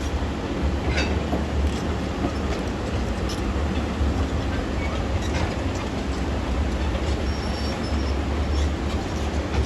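Heavy diesel earthmoving machinery running: a steady low engine rumble with scattered metallic clicks and clanks.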